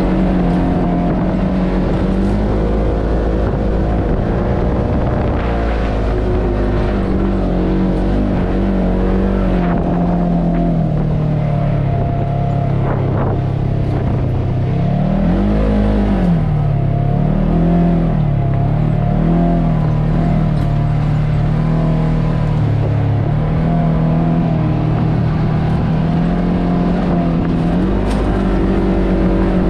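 Polaris RZR Trail S 1000 side-by-side's twin-cylinder engine running under way. Its revs hold steady, ease off for a few seconds about a third of the way in, then rise and fall several times around the middle before settling back to a steady pull.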